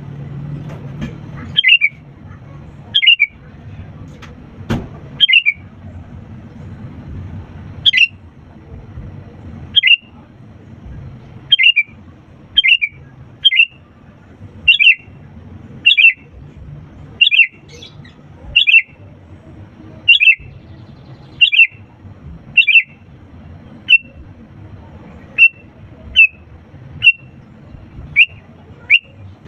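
Sooty-headed bulbul calling over and over, about one short sharp call every second or so, each a quick note dropping in pitch. A faint low hum runs underneath.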